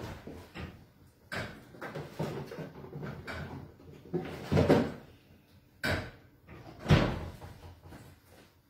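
Kitchen door being opened and shut, with a handful of separate knocks and bumps; the loudest thud comes about seven seconds in.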